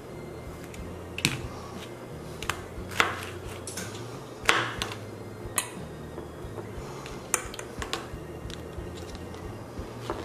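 Kitchen knife cutting fresh pineapple on a cutting board: scattered sharp taps and knocks as the blade meets the board, about eight over ten seconds, with pieces set down in a ceramic casserole dish.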